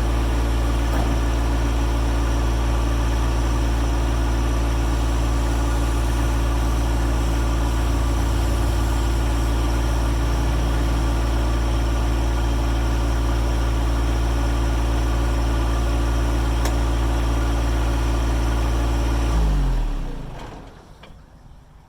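John Deere 1025R's three-cylinder diesel engine running steadily, then shut off near the end, its pitch falling as it winds down to a stop.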